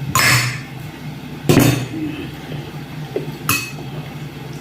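Dishes clinking during a meal: a short rush of noise at the start, then a sharp clink about one and a half seconds in and a lighter ringing clink near the end.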